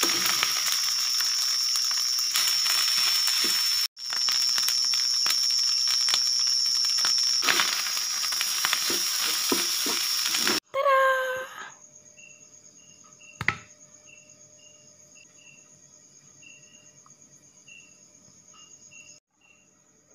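Fried rice sizzling in a hot pan while it is stirred and tossed with a spatula, a dense hiss with many small scraping clicks. About ten seconds in it cuts off, a brief rising squeal follows, and then crickets chirp steadily in a quiet room, with one sharp knock.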